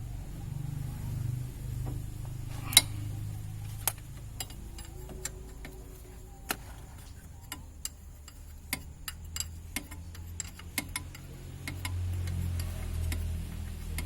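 Isuzu Panther 2.5 turbo diesel engine idling with a steady low rumble, freshly restarted after its fuel system was bled. Irregular sharp clicks and taps of metal tools sound over it, the loudest about three seconds in.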